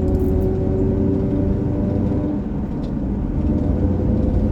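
2004 Jeep Grand Cherokee driving, heard from inside the cabin: a steady low drone with a whine that sinks slightly in pitch, and a few faint ticks. This is the drivetrain noise under way that began after the front differential fluid was changed.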